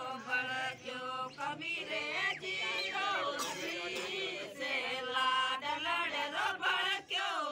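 Several voices chanting together in a sung melody during the pheras, the couple's circling of the sacred wedding fire.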